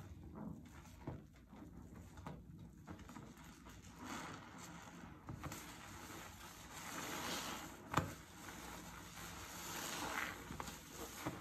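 Soapy sponge being squeezed and kneaded in a sink of sudsy water, the thick lather of dish soap and washing powder squelching and crackling, with wet sloshing as it is dunked. A single sharp click about two-thirds of the way through.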